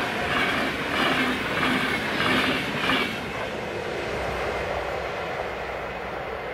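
Passenger train of PKP Intercity coaches passing at speed, its wheels clattering rhythmically over the rail joints; about three seconds in the last coaches go by and the sound drops to the lower rumble of the receding train.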